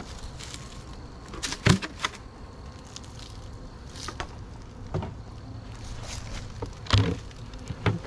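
Honey bees buzzing steadily around an opened hive. A few sharp knocks and clatters from handling the hive and smoker break in, the loudest about two seconds in and again near the end.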